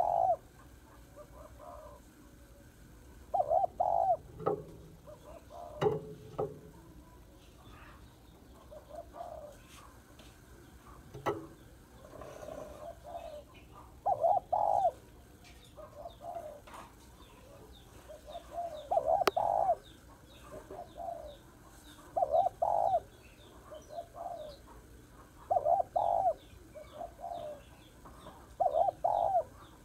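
Female spotted dove cooing: loud phrases of two or three low coos about every three seconds, with softer single notes between them. This is the call used to draw wild male doves in. Faint chirps of small birds sound behind it.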